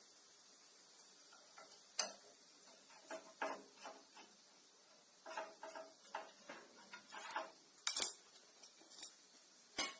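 Scattered light metal clicks and clinks as tools work loose the screws of the steel plate that holds an air conditioner's low-pressure service valve. Two sharper knocks stand out, about 2 seconds in and near the end.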